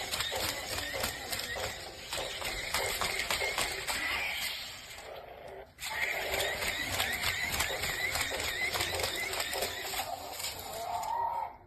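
Small electric motor and plastic gearbox of a remote-control toy T-rex running, with rapid mechanical clicking. It dips briefly about halfway through and stops abruptly near the end.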